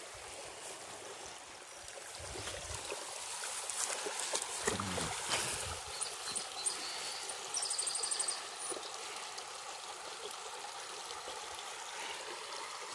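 Shallow, stony creek trickling steadily, with a Border Collie wading through the water and a few soft splashes about five seconds in.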